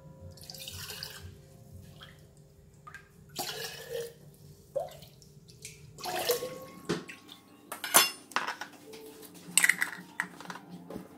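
Liquid chicken stock sloshing and splashing as a glass jar is dipped into a stainless steel bowl and filled, in several irregular bursts, with clinks of glass and metal; a sharp knock about eight seconds in.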